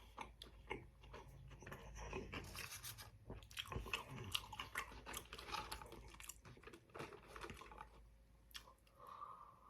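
Close-miked chewing and crunching of fried fast food in the mouth: a dense run of small crisp crunches and wet smacks that is busiest in the middle and eases off near the end.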